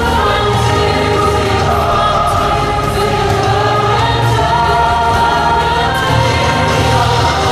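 Loud orchestral show music with a choir singing sustained notes over a strong bass.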